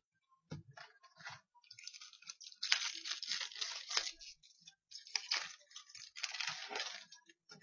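Foil hockey-card pack being opened, its wrapper crinkling and crackling in two long stretches, with a few soft rustles before.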